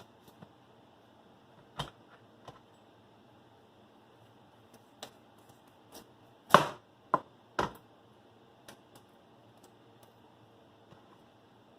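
Knife cutting the stems off a cauliflower head: a few scattered knocks and clicks, the loudest a quick group of three about two-thirds of the way through.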